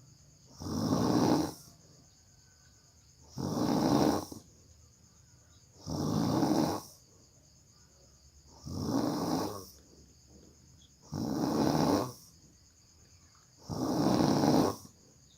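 A person snoring hard in deep sleep: six loud snores, each about a second long, coming every two and a half seconds or so, with quiet breathing gaps between.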